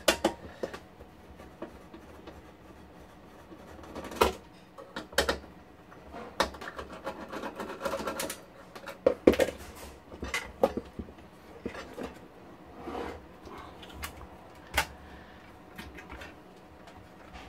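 Irregular clicks and knocks of circuit boards and the metal chassis of an HP 5328A frequency counter being handled and worked loose by hand during disassembly, the sharpest knock about nine seconds in.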